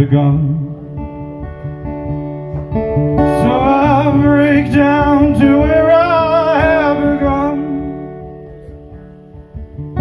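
A man singing a folk ballad to his own acoustic guitar. A sung line comes in about three seconds in and ends about seven seconds in, and the guitar then rings on and grows quieter before the playing picks up again at the very end.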